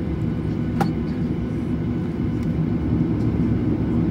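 Boeing 737-800's CFM56-7B engines heard from inside the cabin as a steady low hum, with several held tones, while the airliner taxis. A single sharp click comes about a second in.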